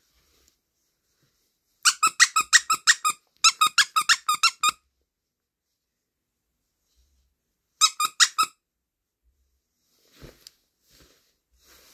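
Squeaker in a small blue plush toy squeezed over and over: three runs of quick squeaks, about seven a second, the last run short. Faint handling rustles near the end.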